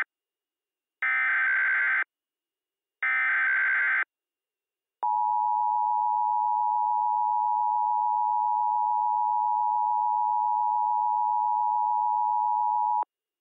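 Emergency Alert System tones: the tail of one digital data burst, then two more bursts about a second long, a second apart. About five seconds in comes the steady two-tone EAS attention signal, 853 and 960 Hz together, held for about eight seconds and cut off sharply.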